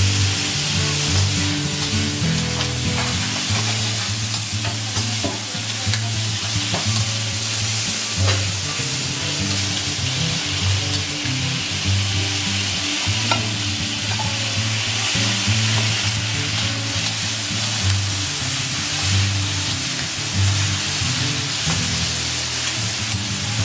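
Beef cubes sizzling steadily on a hot steel teppanyaki griddle, with spatulas scraping and clicking against the plate as they are turned, over background music with a bass line.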